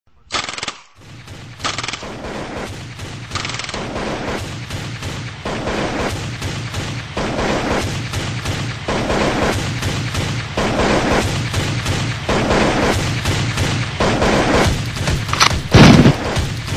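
Gunshots: three sharp reports in the first four seconds, then background music with a steady beat, and one loud rifle shot near the end, the loudest sound.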